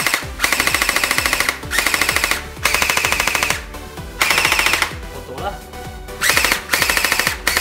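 Bing Feng MK18 gel blaster's electric gearbox firing fully automatic on an 11.1-volt battery: about six short bursts, each a rapid rattle of roughly a dozen shots a second.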